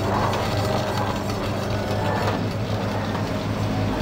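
Electric cracker-slicing machine running fast, its blade chopping a log of raw cracker dough into slices: a rapid mechanical clatter over a steady motor hum.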